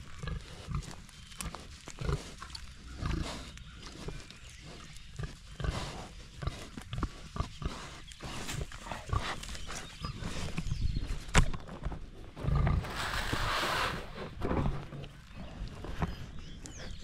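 Gloucestershire Old Spot pigs grunting and snuffling close by as they root in loose mulch and straw, in short uneven bursts. About thirteen seconds in there is a louder rushing noise lasting just over a second.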